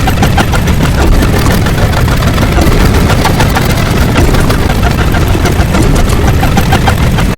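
A loud, dense rumbling noise crowded with rapid crackling clicks, with no clear pitch, that cuts off suddenly at the end.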